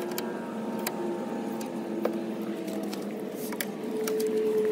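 Scissor jack being wound up under a car with its crank rod: light metal clicks as the rod turns in the jack's eye, over a steady mechanical hum that grows louder near the end.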